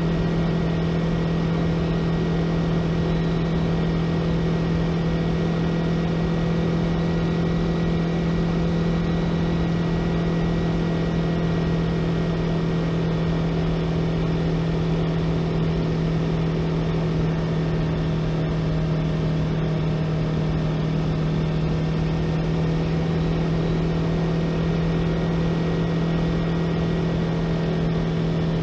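2018 Yamaha YZF-R3's parallel-twin engine running steadily at a constant cruising speed, its pitch holding level throughout.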